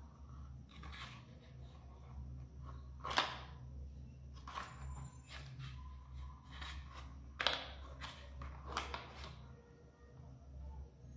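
Plastic clicks and knocks from handling a toy backhoe loader as its front bucket and loader arm are moved by hand, with two louder clacks about three and seven seconds in. A faint steady low hum runs underneath.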